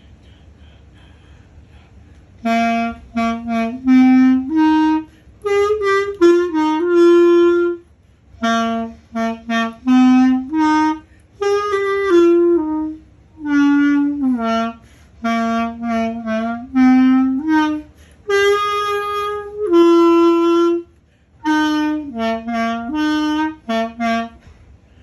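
Solo clarinet with a synthetic reed playing a melody in short phrases of mostly detached notes with a few longer held ones, breaking off between phrases for breath. It comes in about two and a half seconds in.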